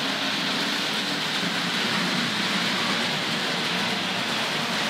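Hornby Dublo A4 Pacific model locomotive with its horseshoe-magnet motor, hauling tinplate coaches around the track: a steady, even whirring rumble of motor and wheels on rail.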